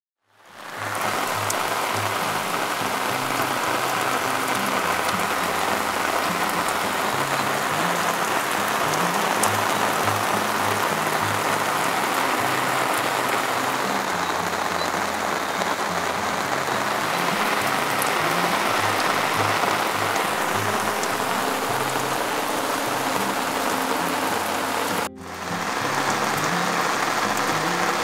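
Steady rain falling on grass and wet ground, an even hiss with scattered drop ticks. Under it is faint low music, and the rain drops out briefly near the end.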